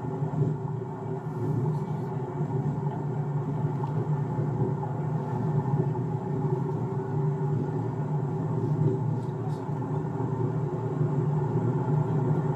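Car driving along a city road: a steady low rumble of road and engine noise.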